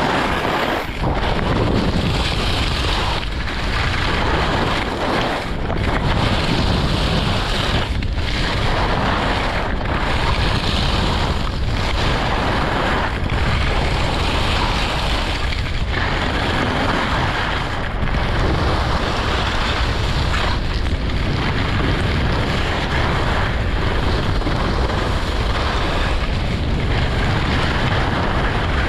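Wind rushing over the camera microphone during a fast ski descent, mixed with the edges of Blizzard Quattro skis scraping across packed snow. The noise is steady and heavy at the low end, with short dips every second or two.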